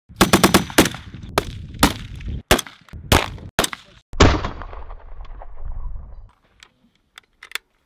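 SA80 A3 5.56 mm assault rifle firing: a quick burst of about five shots, then single shots about every half second, the last one echoing and rumbling away for about two seconds. A few faint clicks follow near the end.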